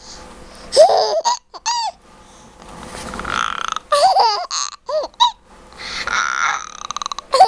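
An eight-month-old baby laughing in repeated short bursts, with high squeals that rise and fall in pitch.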